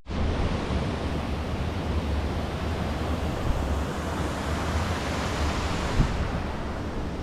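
Wind buffeting the microphone: a steady rushing hiss with a gusting low rumble. There is a brief bump about six seconds in.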